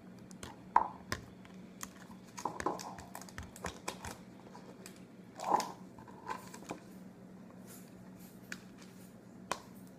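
A drink being tasted from a cup: a few short sips and mouth sounds among light clicks and taps, over a steady low hum.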